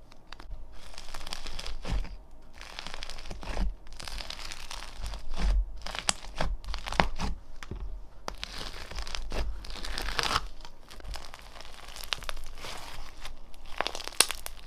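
Slime being squeezed and pressed by hand, with dense crackling and crunching pops throughout.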